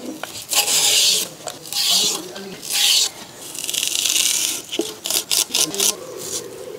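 Curved iron knife scraping and peeling taro (colocasia) stems: a series of rasping strokes, one longer stroke in the middle, then a few quick sharp clicks near the end.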